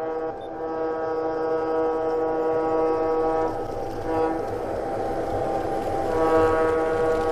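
Horn from a G-scale model train's sound system, a steady chord held for a few seconds that stops about halfway through and sounds again near the end, over the low rumble of the model train rolling past on the track.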